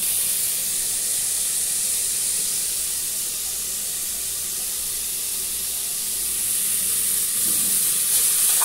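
Meat frying in a pan on the stove, a steady sizzling hiss that eases a little midway and picks up again near the end.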